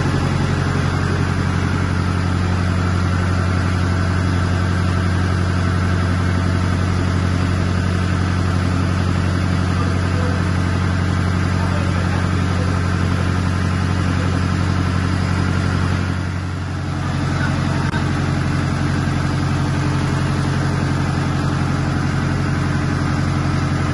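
Ship's engine-room machinery running: a loud, steady low drone with a held hum, dipping briefly about two-thirds of the way through.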